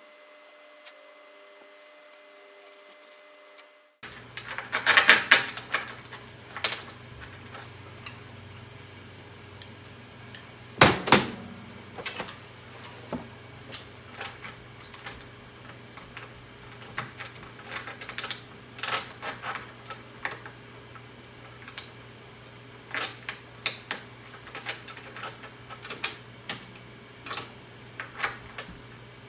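Stainless steel tri-clamps and their welded bolts clinking and clanking against a drilled stainless steel table top as the bolts are worked into the holes: irregular sharp metallic clicks that start after a few quiet seconds, with the loudest clank about eleven seconds in. The bolts are not seating flush, which is blamed on burrs left around the drilled holes.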